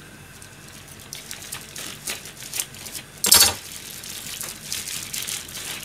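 Kitchen counter handling noises: scattered small clicks and rustles, with one louder, short rattling clatter a little over three seconds in.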